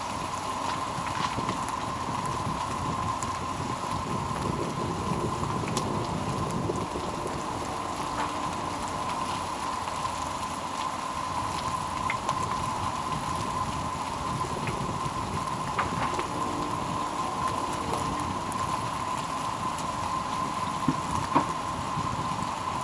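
Hash browns and sausage frying in oil in a pan: a steady sizzle with scattered pops, two sharper ones near the end, over a steady faint tone.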